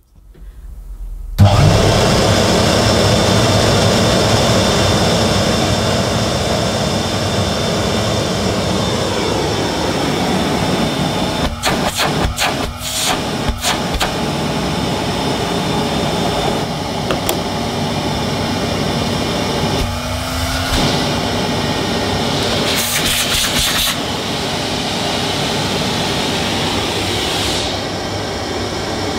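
A 1957 Hoover Constellation model 822 canister vacuum cleaner is switched on about a second and a half in, its motor spinning up and then running steadily. The tone changes briefly a few times.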